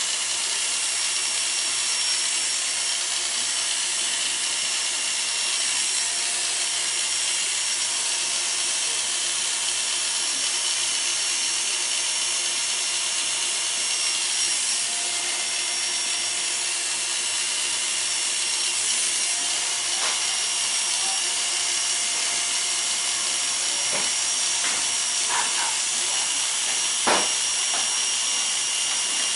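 Electric hair clippers running steadily, buzzing as they cut hair short on the sides and back of the head. A few sharp clicks near the end.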